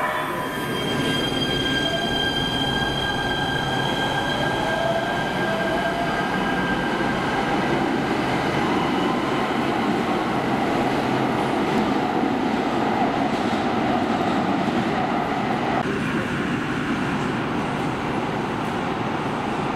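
Electric light rail train pulling out of an underground station: a steady motor whine over the rolling rumble of the wheels, with wheel squeal. Near the end the sound changes as another train approaches the platform.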